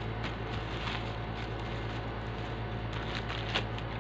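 Steady low hum and hiss of background noise, with a few faint clicks and rustles from hands handling a plastic perfume-mist bottle, most of them a little after the three-second mark.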